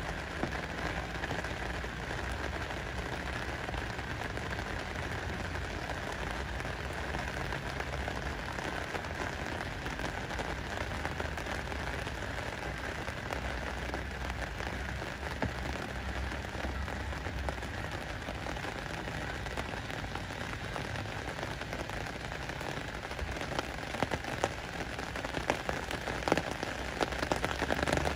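Rain falling steadily on a lake's surface: an even hiss of countless drops hitting the water, with louder, sharper drop hits in the last few seconds.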